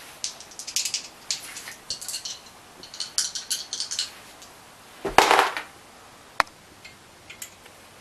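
Dice rattled in cupped hands: a run of quick, light clicks for about four seconds. About five seconds in comes a short, louder rush of noise, then a single sharp click a second later.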